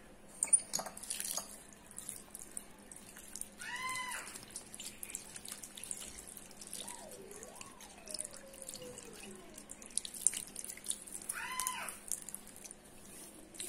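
Tap water running into a ceramic washbasin and splashing over hands as they are rubbed and rinsed. Two short, high, arching cries sound over it, about four seconds in and again near the end.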